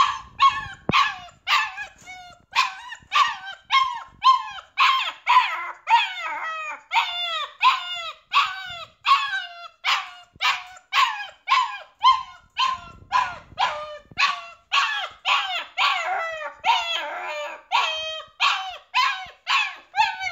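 Puppy crying and yelping without a break, about two high calls a second, each falling in pitch: the distress cries of a puppy shut in a crate and left alone.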